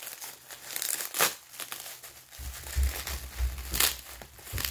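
Packing material crinkling and rustling in short bursts as hands rummage through a shipping box, with a low rumble coming in about halfway through.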